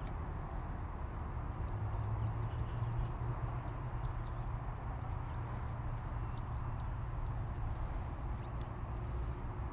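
Steady low outdoor rumble, with a bird giving runs of short, high repeated chirps twice.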